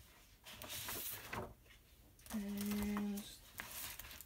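Sheets of patterned card stock rustling and sliding as they are handled, with a woman's short, steady hummed "mmm" in the middle that is the loudest sound.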